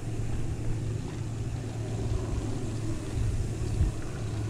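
Bicycle tyres rolling over a sandy dirt trail, heard as a steady low rumble through the bike-mounted camera.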